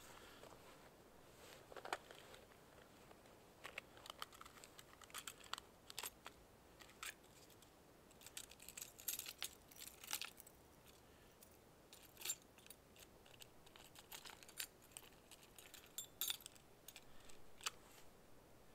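Faint, irregular small clicks and rustles of hands fiddling with small gear, scattered throughout with a few sharper ticks.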